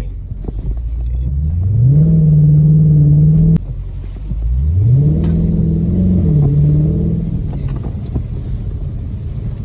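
Dodge Charger Scat Pack's 392 (6.4-litre) HEMI V8 under hard acceleration twice. The engine note climbs and holds, cuts off abruptly with a click about three and a half seconds in, then climbs and holds again before easing off.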